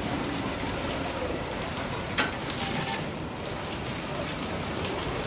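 Freight hopper wagons rolling slowly past: a steady rumble and rattle of steel wheels on the rails, with a sharp knock a little over two seconds in.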